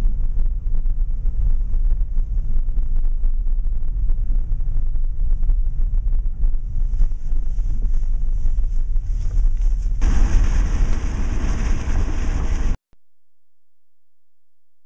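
Car cabin road noise: a steady low rumble with wind buffeting the microphone. It gets louder and rougher about ten seconds in, then cuts off suddenly near the end.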